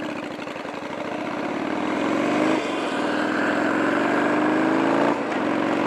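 Yamaha Virago 750's V-twin engine accelerating away, its pitch climbing and growing louder. It shifts up about two and a half seconds in and again near the end, each shift a brief dip before the climb resumes.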